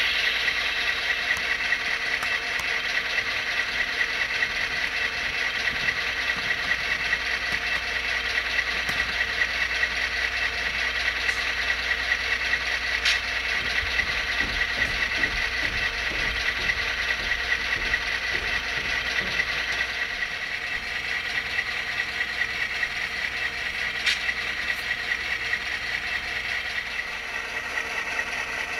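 Soundtraxx Tsunami sound decoder playing a diesel locomotive engine sound through an HO scale GP9 model's small speaker, running steadily with a light mechanical rattle. It eases slightly about two-thirds of the way through.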